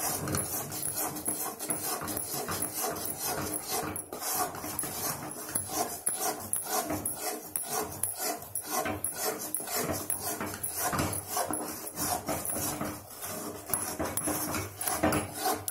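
Wooden spatula stirring and scraping a thick, sticky besan Mysore pak mixture against a metal kadai in quick, continuous strokes. The batter is cooking in hot oil and is kept moving so it does not stick to the bottom and burn.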